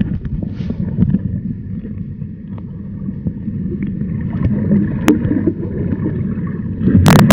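Muffled, low churning of moving water picked up by a camera held underwater, with a sharp click about five seconds in and a loud knock near the end.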